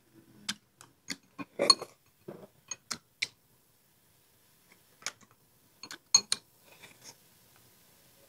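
Close-up eating sounds: wooden chopsticks clicking against a small glass rice bowl, mixed with the mouth noises of chewing fried pork. The sharp clicks come in a busy run over the first three seconds, then a pause, then a few more about five to six seconds in.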